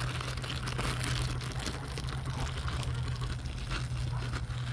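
Rustling and crinkling of grass as a dog moves through it at close quarters, with scraping handling noise from the phone against a fabric pack, over a steady low hum.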